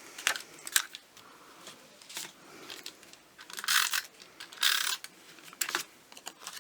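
Cardstock and adhesive being handled while paper squares are stuck onto mats: scattered light clicks and taps, with two short rasping bursts a little after the middle.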